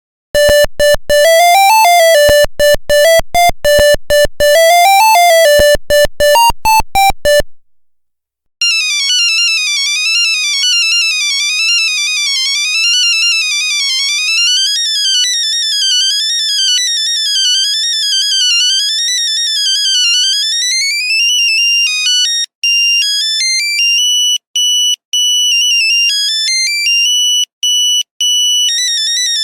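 Nokia mobile phone ringtones playing as electronic beeping melodies, one note at a time. A short, lower tune of quick notes ends about seven seconds in. After a pause of about a second, a higher tune of fast rising and falling note runs begins, and near the end it turns to longer held notes with short gaps.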